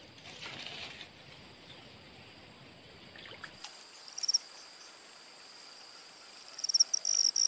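Steady high-pitched insect drone, with a cricket giving a short pulsed chirp about four seconds in and starting again near the end, running into a steady trill.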